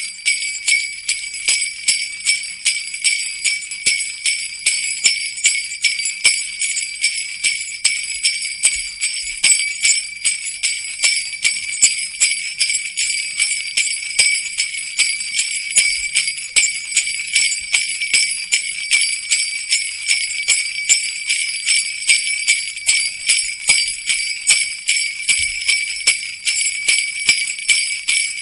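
Jingle bells shaken in a steady, even rhythm, about two to three shakes a second, a continuous bright metallic jingling.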